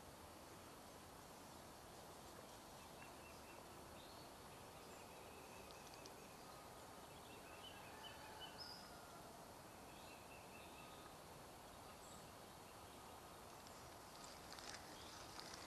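Near silence: faint steady outdoor background hiss with a few faint, scattered bird chirps, and some light handling clicks near the end.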